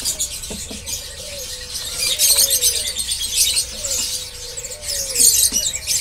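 Many small caged songbirds chirping and twittering at high pitch, in thick bunches about two seconds in and again near five seconds. Underneath, a fainter lower tone slides downward several times.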